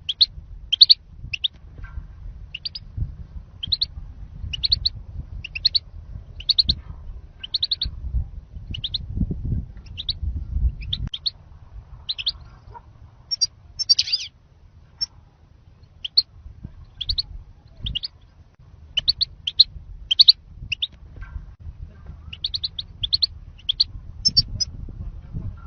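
European goldfinch calling: short, high twittering calls of two or three quick notes, repeated about once or twice a second, over a low rumble.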